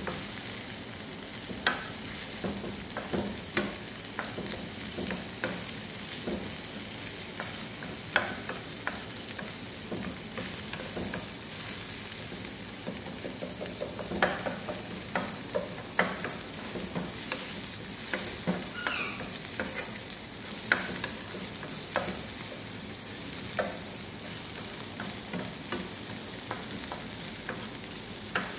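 Chopped onions sizzling in hot oil in a nonstick frying pan, with a steady hiss. A wooden spoon stirs them, scraping and knocking against the pan at irregular intervals.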